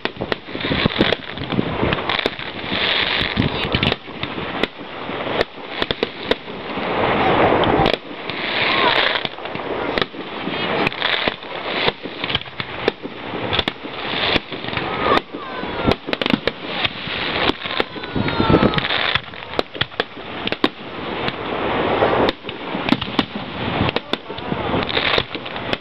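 Aerial fireworks going off in quick succession: sharp bangs one after another with crackling between them, and a few short rising whistles about halfway through.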